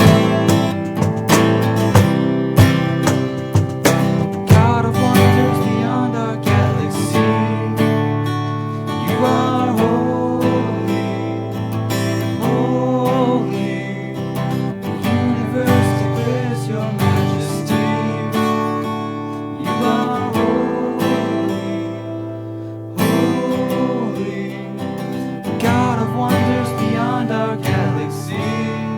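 Music led by a strummed acoustic guitar, dropping back briefly and coming in strongly again about 23 seconds in.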